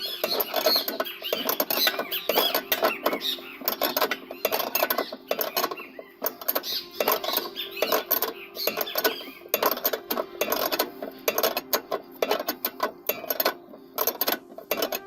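Rapid, irregular metallic clicking of a wrench working a nut on a car's sway-bar end link.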